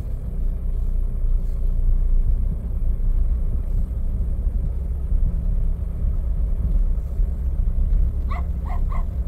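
Steady low rumble of a car rolling slowly, heard from inside the cabin; near the end a dog gives three quick barks.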